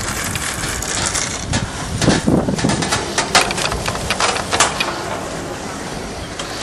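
Chairlift ride: a steady rushing noise, and about two seconds in a couple of seconds of rattling clicks as the chair's grip runs over a lift tower's sheave wheels.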